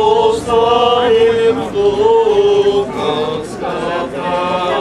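An Orthodox priest chanting the prayers of the blessing of the waters on long held notes, the pitch stepping between them with short breaks.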